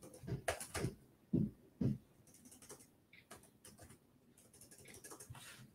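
Computer keyboard typing: quick runs of key clicks, with two heavier thuds about a second and a half and two seconds in, then scattered lighter keystrokes.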